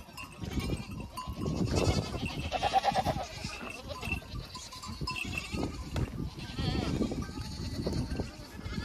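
A mixed herd of goats and sheep on the move, several animals bleating in short calls, with low scuffing and knocking underneath throughout.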